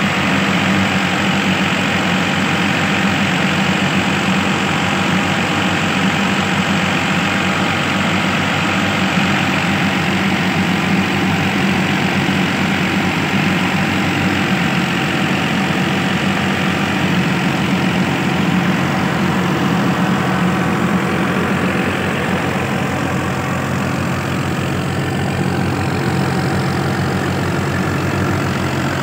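Fiat 480 tractor's diesel engine running steadily at constant speed, belt-driving a threshing machine, engine and thresher sounding together as one steady mechanical din.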